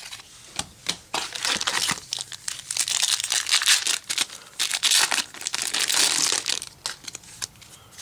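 Foil wrapper of a 2010 Topps football card pack being torn open and crinkled for about five seconds. A few sharp card flicks come before and after.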